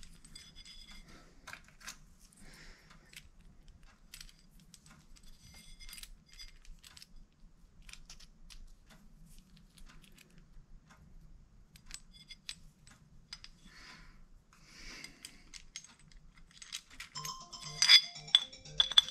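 Small metal clicks and clinks from a pancake roller bearing and clutch throwout plate being handled and fitted together by hand. Louder, ringing metallic clinks come near the end.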